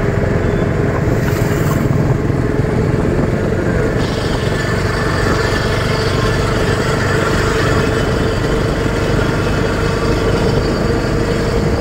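Auto-rickshaw running steadily with engine and road noise, heard from on board, with a steady whine running under it.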